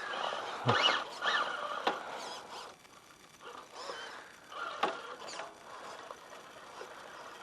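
RC crawler's brushless motor and gear drive whining in short bursts of throttle, the pitch rising and falling with each blip, with a few clicks from the truck working over rocks.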